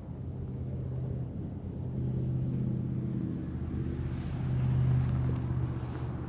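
An engine running with a steady low hum, swelling louder about two seconds in and again around five seconds in.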